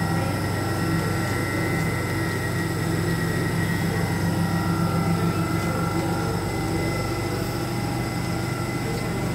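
Electric train, a Class 345 unit, humming and whining steadily: a low electrical hum with thin high whining tones from its traction and auxiliary equipment, the low hum easing a little after about six seconds.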